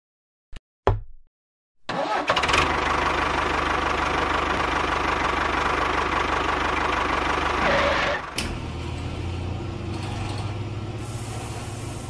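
Two short clicks, then about two seconds in an engine starts and runs steadily. A little past the middle it drops to a quieter, steady low hum.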